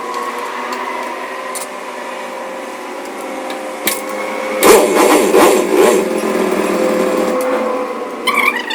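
An engine running steadily, louder for about a second and a half midway through, with a single click shortly before.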